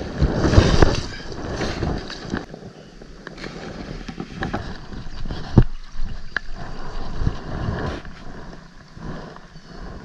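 Wind rumbling on the microphone over the stream, with a hooked trout splashing at the surface in the first second and a few short sharp clicks later from handling the fly line and rod.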